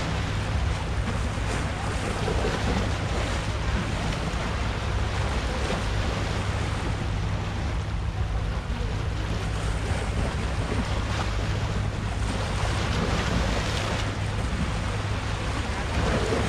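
Sea surf washing against a rocky shore, with wind buffeting the microphone as a steady low rumble.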